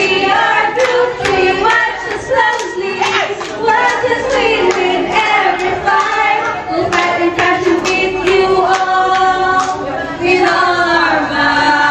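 A group of people singing a cheer-song together, voices in unison with some held notes, with hand claps through it.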